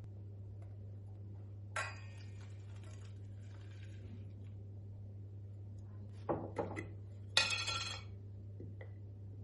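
Small hard objects being handled and set down: a ringing clink about two seconds in, two sharp knocks, then a louder ringing clink near the end, over a steady low hum.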